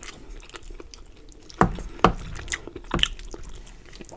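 Close-miked wet chewing with sharp mouth smacks, the loudest about one and a half, two and three seconds in.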